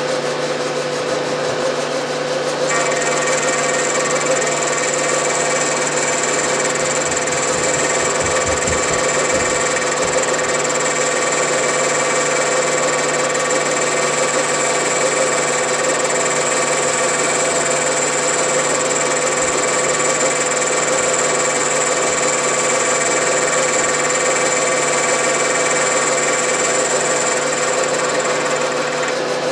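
Milling machine running a T-slot cutter through a side pass along a T-slot as the table feeds the work past it, with a steady hum. A high whine joins about three seconds in and stops just before the end.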